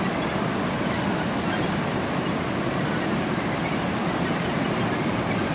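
Steady rushing noise of wind and ocean surf on an exposed coastal clifftop, even in level throughout, with no distinct calls or other events standing out.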